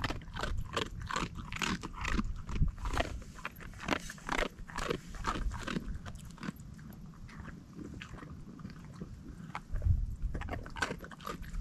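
German Shepherd crunching and chewing dry treats, a run of irregular crunches that comes thickest in the first half and thins out later.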